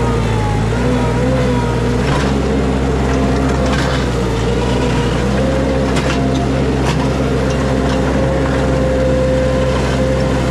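Mini skid steer engine running steadily, with a few short sharp knocks over it.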